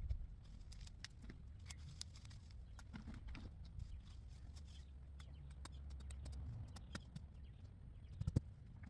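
Brittle twigs and branches of a thorny tree being cut and handled: scattered sharp clicks and snaps, with a louder cluster of snaps near the end.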